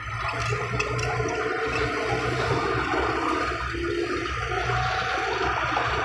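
Small crawler bulldozer's diesel engine running hard under load, with a steady rushing noise, as it pushes soil with its blade. The sound steps up in loudness at the start.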